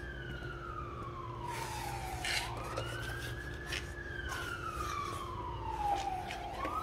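A wailing siren, its single tone slowly rising and falling about every four seconds, with a few light taps over it.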